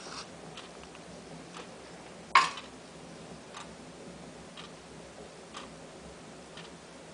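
Faint, regular ticking about once a second, with one much louder sharp click about two and a half seconds in.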